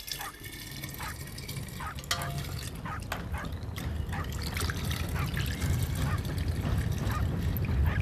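Milk trickling from a metal pot through a plastic funnel into a glass bottle, with a few light clicks, under a low rumble that grows steadily louder.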